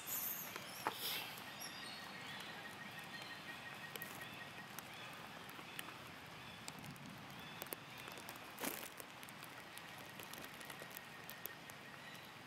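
Outdoor ambience: a steady background hiss with scattered light clicks and rustles of macaques shifting on dry leaf litter, louder about a second in and again near nine seconds. A faint steady high tone comes and goes.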